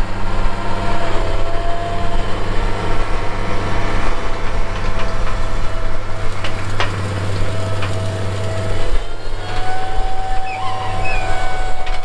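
Case IH tractor's diesel engine running steadily under load as it pulls a corn planter through the field, with a thin steady whine over the engine.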